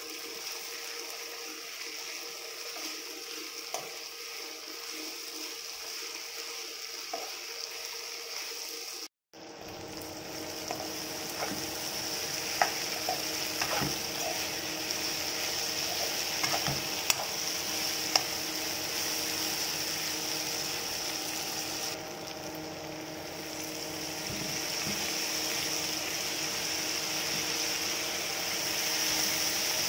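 Potato strips with onion frying in oil in a nonstick pan, sizzling steadily as they are stirred, with a few sharp clicks of the spoon against the pan in the middle.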